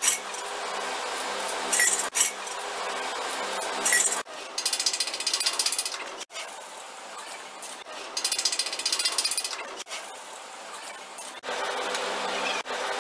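Mechanical clicking and rattling over a steady hum, with two bursts of fast ratchet-like clicks, each lasting a second or more.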